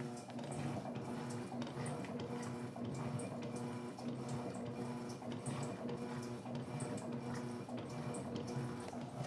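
Electrolux LT12F washing machine agitating a load: water sloshing and splashing in the tub over the steady hum of the motor.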